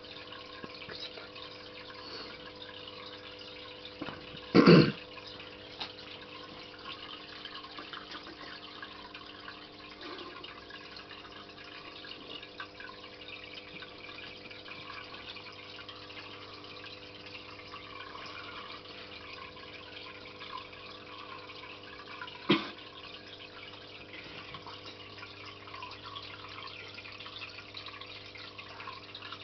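Aquarium air bubbler: a stream of air bubbles rising and popping at the water surface in a steady trickling bubble, over a steady low hum. Two short sharp knocks stand out, a louder one early on and another about three quarters through.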